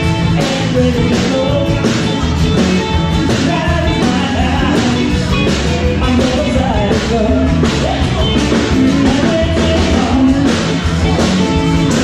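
Rock-and-roll song with a singer, guitar and a steady drum beat.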